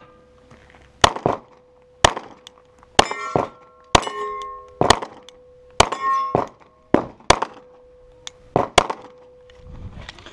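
Glock 17 9mm pistol firing a string of single shots, roughly one a second. Between the shots, struck steel targets ring on with a long metallic clang.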